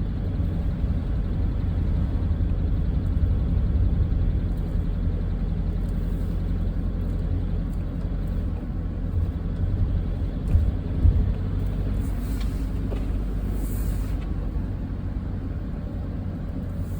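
Car driving, a steady low rumble of engine and road noise, with a couple of brief louder bumps about two-thirds of the way through.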